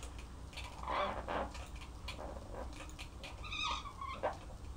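Dry-erase marker writing on a whiteboard: faint scratchy strokes and a short squeak in the second half.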